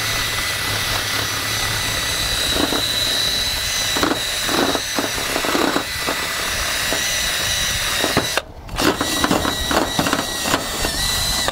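Cordless drill spinning a brush wheel against the red-painted cast-metal body of a gumball machine, scuffing off the shiny finish to prepare it for paint. The drill's whine and the scrubbing hold steady, cut out about eight seconds in, then come back in short runs near the end.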